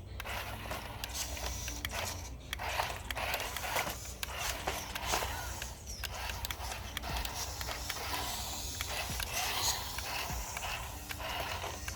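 Small electric motor and gearbox of a cheap 4x4 remote-control rock crawler whirring in on-and-off spurts as it drives over rough ground, with dense crackling and clicking throughout.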